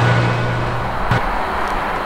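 A steady low engine drone with a faint high whine that cuts off abruptly about a second in. A steady outdoor rushing noise follows.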